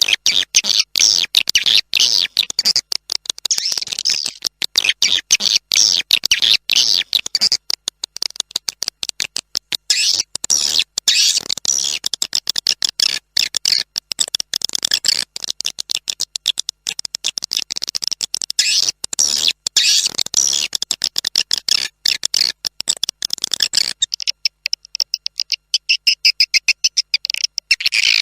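Recorded swiftlet calls used as a lure: a dense, rapid stream of high chirps and twitters laced with fast clicks, the kind of call sound played in swiftlet houses to draw swiftlets in to roost and nest. About four seconds before the end the lower background drops away, leaving only the high chirping.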